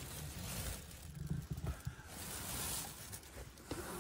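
Faint rustling and handling noise around a new wheel packed in plastic wrap in a cardboard box, with a low rumble and a few light clicks.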